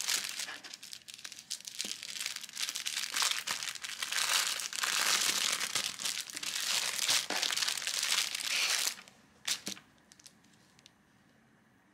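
Clear plastic bag crinkling as hands open it and pull a fabric calendar out, continuous crinkling that stops about nine seconds in, followed by a couple of brief rustles.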